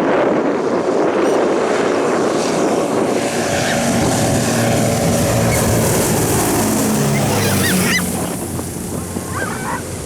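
Britten-Norman Islander twin piston-engine propeller aircraft passing low overhead on landing: a loud engine and propeller drone whose pitch falls as it goes by, dying down about eight seconds in.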